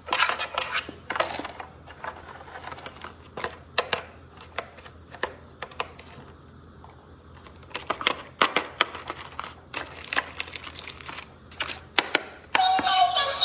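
Irregular clicks, taps and crinkles of packaging and a toy being handled during an unboxing. About a second before the end, music with a synthetic singing voice starts.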